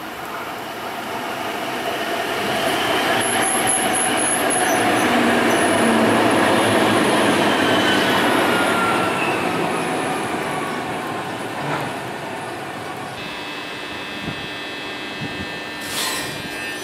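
Alstom Citadis Dualis tram-train running past along the platform: a swelling rush of wheels on rail and traction motors, with a whine that falls in pitch as it goes by. After that comes a steadier hum with several held tones from the tram at a platform, and a single knock near the end.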